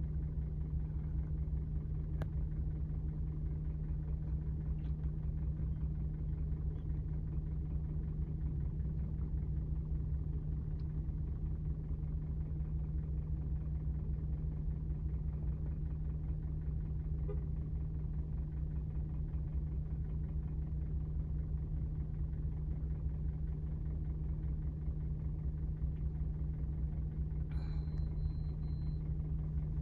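Steady low engine drone and rumble of a running motor vehicle, unchanging throughout. A short high tone sounds near the end.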